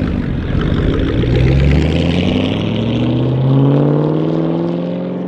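Ford Mustang Shelby GT500's supercharged V8 accelerating away from a standstill, its engine note climbing steadily in pitch as it pulls off.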